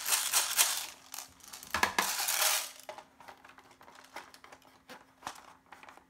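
BB pellets rattling inside the plastic high-capacity magazine of a G3 airsoft gun as it is handled, in two bursts over the first three seconds, then quieter plastic clicks and scrapes as the magazine is fitted into the gun's magazine well.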